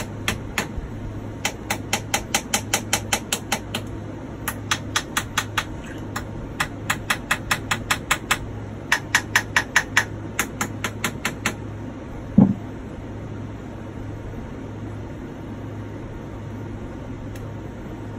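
Sharp clicks or taps in quick runs of about four a second, four runs in all, then a single heavier knock.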